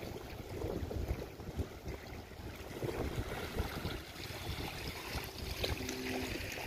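Wind gusting on the microphone over small waves lapping at the shoreline.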